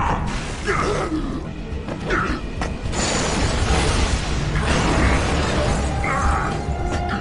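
Dramatic anime fight-scene soundtrack: music under a loud crash of shattering ice about three seconds in.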